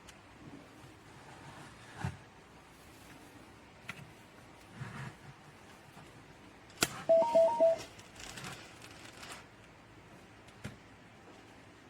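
A sharp click about seven seconds in, then a quick run of short electronic beeps at two pitches lasting under a second. A few faint clicks come before and after it.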